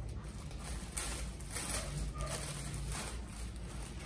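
Clear plastic bag crinkling and rustling as a folded garment is pulled out of it, in short uneven scrunches.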